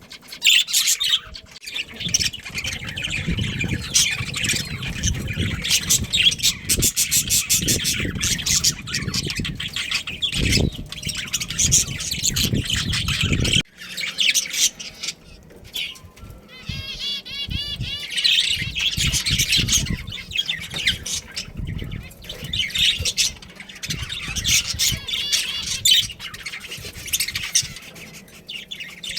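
A group of budgerigars chattering with continuous chirps, squawks and warbles, including a warbling trill about halfway through. A low rumble sits under the first half and stops abruptly near the middle.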